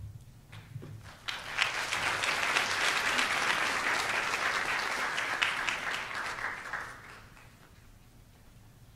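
Audience applauding, beginning about a second in and dying away about seven seconds in.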